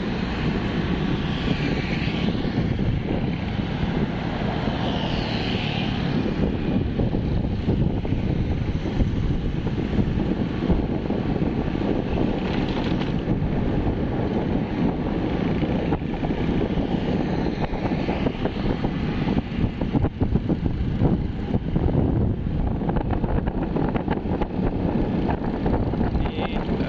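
Riding a motorcycle in traffic: a steady drone of engine, tyre and wind noise on the rider's microphone.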